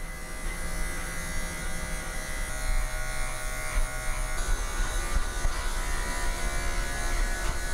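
Electric pet clipper running steadily with a constant motor hum as it shaves mats out of a Persian cat's long fur.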